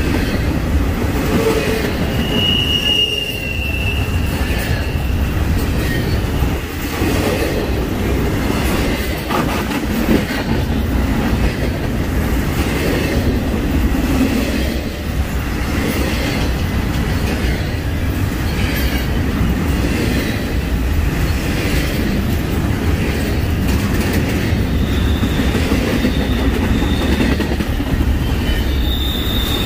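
Norfolk Southern freight train cars rolling past, a steady rumble of steel wheels on the rails. Brief high wheel squeals come about two to three seconds in and again near the end.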